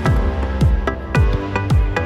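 Electronic background music with a deep kick drum that falls in pitch on each hit, about two beats a second, over sustained synth chords.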